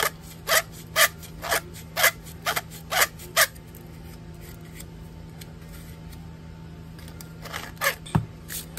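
Hand tool scraping around the inner edge of a copper pipe to clean it before soldering: about eight short, sharp scraping strokes in quick succession, a pause, then a few more strokes near the end.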